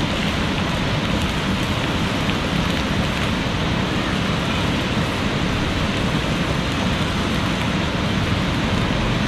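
Steady rushing of a fast-flowing river, an even wash of water noise that holds at one level throughout.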